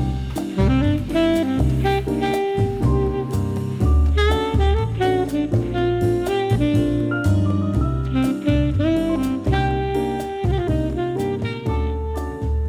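Background jazz music with saxophone melody over bass and drums.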